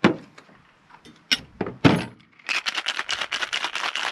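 Stainless steel cocktail shaker being capped with a few metal clunks, then shaken hard: ice rattles inside in a fast, even rhythm starting about two and a half seconds in.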